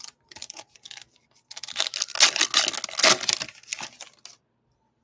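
A Topps baseball card pack's wrapper being torn open and crinkled by hand. A few light rustles come first, then about two and a half seconds of dense crackling tearing that stops about four seconds in.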